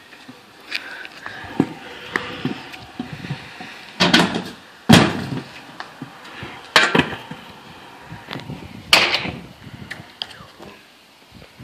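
Stunt scooter wheels rolling and clattering on concrete, with four loud sharp slams, the deck and wheels banging down as the rider hops and lands.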